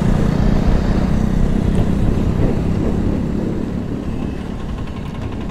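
Motorcycle engine running under rider-mounted-mic wind rush while the bike slows down; the engine note and wind ease off gradually.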